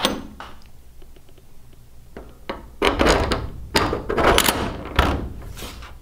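A large bolt and washer handled and set down on thin aluminium sheet: a thunk at the start, then a run of knocks and scraping clatter of metal on metal in the second half as the bolt is seated in the plate's hole.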